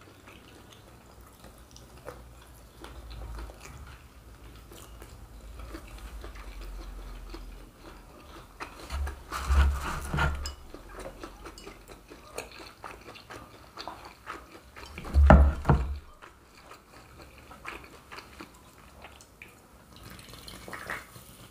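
Close-up chewing and biting as two people eat fried pastéis and cheese-stuffed kibe, with small wet clicks and crunches of the fried crust. Two louder, lower moments come about ten and fifteen seconds in.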